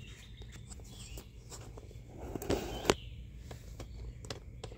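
Handling noise from a phone being moved down to a low angle: scattered clicks and scuffs, with a louder rustle ending in a sharp click about three seconds in.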